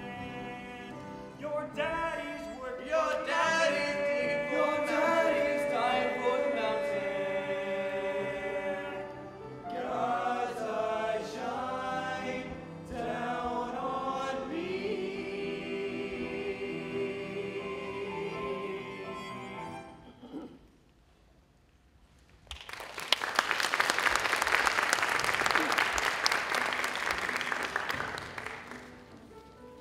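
Male voices singing together in harmony, ending on a long held chord. After a moment's hush, an audience applauds for about six seconds before the clapping fades.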